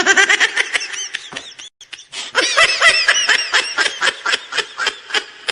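A meme laughing sound effect: a person snickering and laughing in quick repeated bursts, with a short break about two seconds in.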